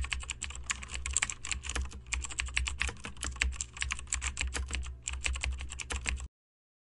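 Typing sound effect: a fast, uneven run of key clicks over a steady low hum, stopping dead near the end.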